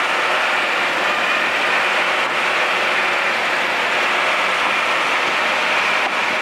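Mercedes-Benz LA 911 B short-bonnet truck driving at a steady speed: its diesel engine running with tyre noise on asphalt, a steady even sound with no change in pitch or level.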